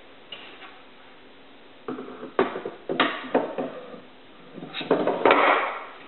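Wooden tray insert being set into a wooden box: a string of sharp wood-on-wood knocks and clatter, then a longer clattering rattle near the end as it settles into place.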